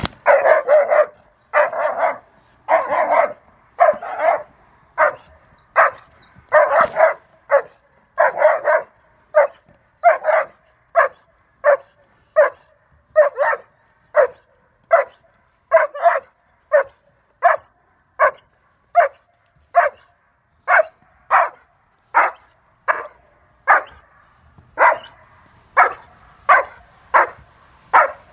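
An adult German Shepherd barks steadily and rhythmically at a helper wearing a bite sleeve, a little over one bark a second. This is the bark-and-hold of protection training.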